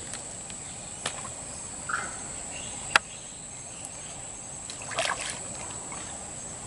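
River water sloshing and splashing at the bank as a giant gourami is landed by hand, with a few sharp clicks and a louder splash about five seconds in.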